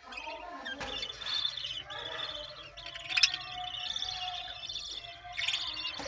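Budgerigars chirping and chattering, with one sharp click about three seconds in.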